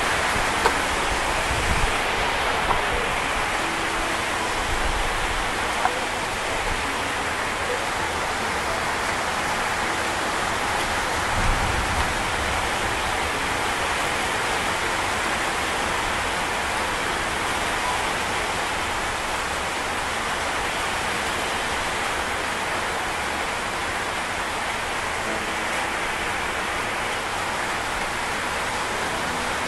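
Heavy rain falling steadily in an even hiss, with a few sharp knocks of kitchen utensils in the first twelve seconds.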